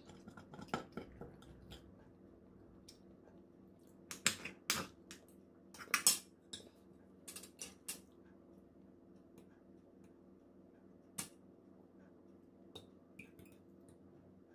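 Metal fork and spoon clinking and scraping on a ceramic plate while eating, in scattered sharp clicks, the loudest clustered around four and six seconds in. A faint steady hum runs underneath.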